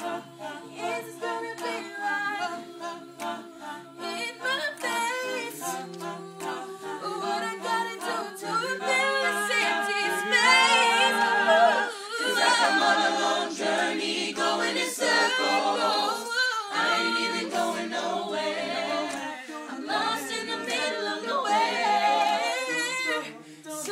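Mixed-voice high school a cappella group singing, with a lead voice carrying a wavering melody over sustained backing harmonies and no instruments. It grows louder and fuller about nine seconds in.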